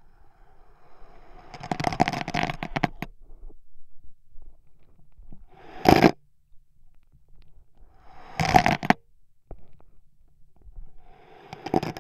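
Beads of a wooden abacus sliding along their metal rods as the frame is tilted, each run ending in a clatter of beads knocking together and against the wooden frame. It happens four times: about two seconds in, at six seconds, around eight and a half seconds and near the end.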